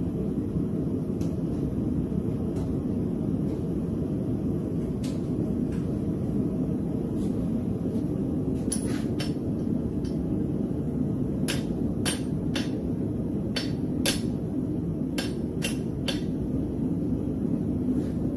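Sharp metallic clinks and taps of tongs and a hot steel railroad spike knocking against the anvil and hot cut hardy tool as the split spike is pressed open over the hardy's edge, most of them in the second half. A steady rushing noise runs underneath.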